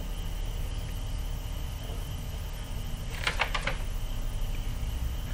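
A quick run of four or five sharp clicks about three seconds in, over a steady low electrical hum.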